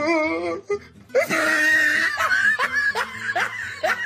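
Laughter with a wavering pitch at the start, then rising bursts repeating two or three times a second.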